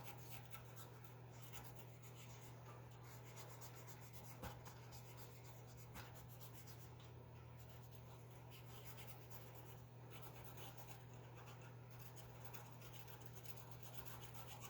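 Faint, scratchy scrubbing of corroded metal connector pins being cleaned, over a steady low hum, with a couple of small clicks.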